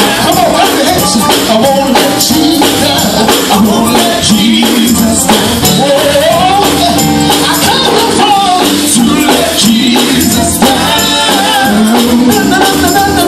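Live gospel music with a tambourine shaking and striking steadily over the band, and singing.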